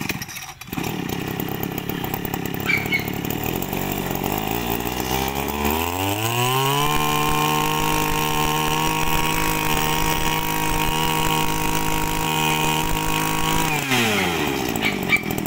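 Kioritz (Echo) 26 cc two-stroke brushcutter engine running at a rough idle, then revved up about six seconds in to a steady high-speed whine held for about seven seconds, before dropping back toward idle near the end.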